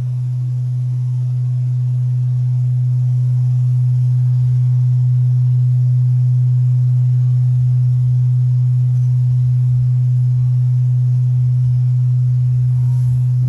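Large hanging Japanese temple bell (bonshō) humming after being struck: one deep, steady tone that swells a little over the first few seconds and then holds.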